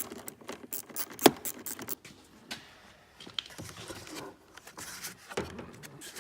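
Clicks, taps and knocks of hand tools and hard plastic parts being handled while a car's side-view mirror is taken off. The clicks come quickly at first, with one sharp loud click about a second in, then thin out to scattered handling noises.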